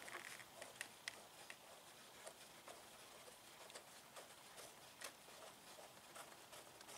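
Near silence with faint, scattered small clicks of fingers handling the metal banjo fitting on a motorcycle brake caliper as it is worked loose.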